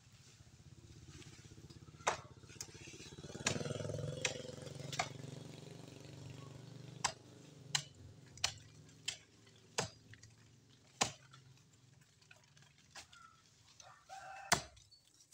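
A motorcycle engine passing, swelling about three seconds in and fading over the next few seconds, with about a dozen short sharp knocks scattered throughout.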